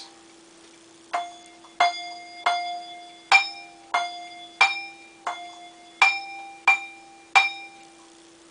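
Two handbells rung with thumb damps: about ten short notes at two slightly different pitches, each cut short by the thumb pressed on the bell casting so it gives a stopped sound instead of ringing on.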